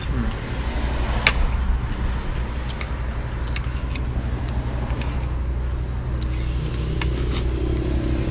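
Steady low rumble of a motor vehicle's engine running nearby, with a few sharp clinks of spoons and forks on plates, the strongest a little over a second in.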